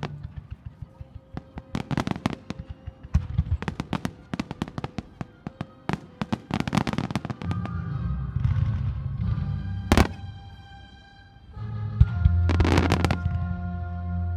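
Fireworks crackling and bursting in rapid strings of sharp reports, with one loud bang about ten seconds in. Behind them runs show music whose held notes and heavy bass swell up in the second half.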